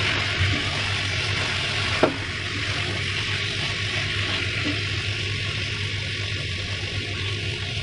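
Pork and tomato stew sizzling in a frying pan as it is stirred, with one sharp knock against the pan about two seconds in and a low steady hum underneath.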